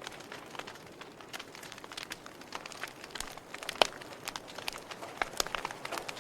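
Wood fire burning in a fireplace, crackling with many irregular small pops over a soft hiss, and one louder pop a little past the middle.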